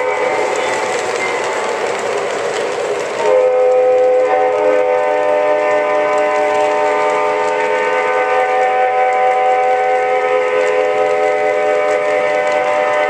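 Lionel O-gauge model locomotive's electronic horn sounding one steady, sustained multi-note chord over the rumble of freight cars rolling past on the track. About three seconds in, the rolling noise eases and the horn comes through louder and clearer.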